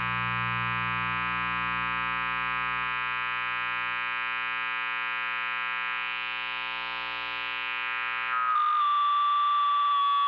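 Amplifier buzzing with a steady hum full of overtones. About eight and a half seconds in, a high feedback whine sets in and holds.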